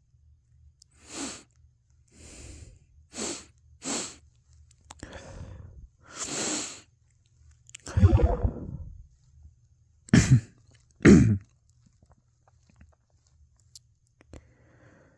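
A person with hay fever sneezing close to the microphone: several quick, breathy breaths building up, then three loud sneezes, a long one about halfway through and two more about a second apart.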